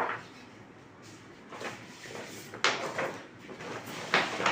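A few brief sliding and scraping handling noises, spaced about a second apart, with quiet room tone between them.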